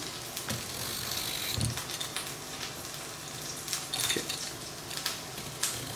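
Turkey patties frying gently in oil in a pan, a steady sizzle. Over it come several light clicks and taps from a vegetable peeler and hands working a cucumber on a wooden cutting board.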